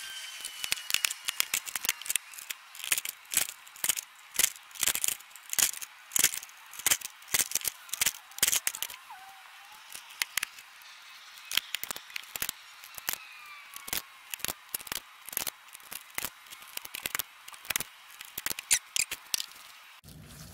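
Hand punch working through an aluminum piano hinge and panel to make rivet holes: a long, irregular run of sharp metallic clicks and snaps, one to three a second.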